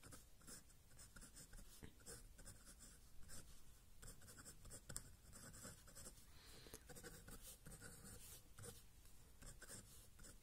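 Faint scratching of a pen on paper in short, irregular strokes as a diagram and letters are drawn.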